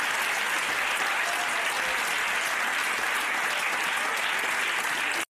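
Studio audience applauding steadily, a dense even clapping that cuts off abruptly at the end.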